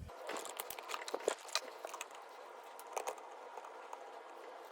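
Faint, scattered clicks and light taps, a handful of them mostly in the first three seconds, over a low hiss.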